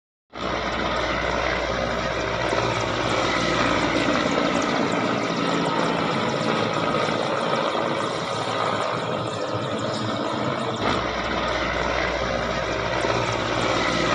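Helicopter flying overhead: loud, steady rotor and engine noise.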